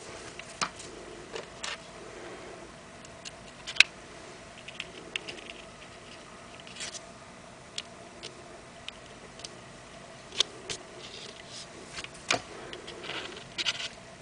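Irregular light clicks and taps with soft rustling as a mini hot glue gun is handled and small paper embellishments are pressed onto a page. The sharpest click comes about four seconds in, over a faint steady hum.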